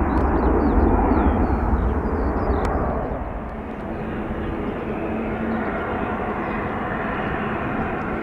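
Jet airliner engines at an airport: a loud, deep rumble for about three seconds that then eases to a steadier drone with a faint whine.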